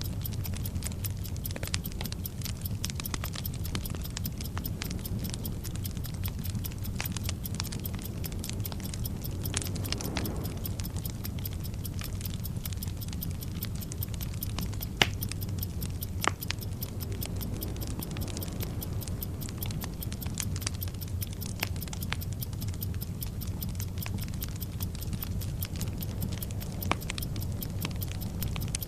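Bomb-timer sound effect: a clock ticking over the crackle of a burning fuse, with a steady low rumble beneath and a few louder crackles.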